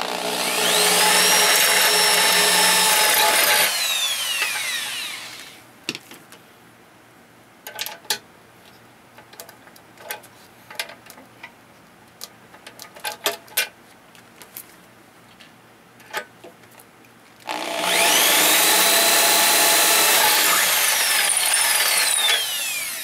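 Corded electric drill boring rivet holes through a hinge leaf into an aluminium post: the motor runs at a steady high whine for about four seconds, then its pitch falls away as the trigger is released. Several seconds of light clicks and knocks follow as the drill and hinge are handled. About three quarters of the way in the drill runs again for a second hole and winds down near the end.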